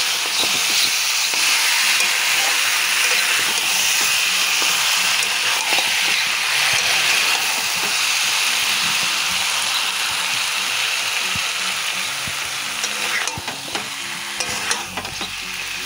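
Mutton pieces in oil and spice paste sizzling steadily in a pan as they are slow-fried (kosha), while a spatula stirs and scrapes through them with short scraping clicks.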